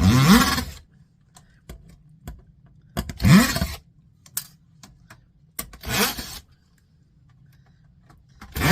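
A small handheld power tool run in four short bursts, its motor whirring up in pitch each time, as screws are driven out to free an aluminium heatsink from a circuit board.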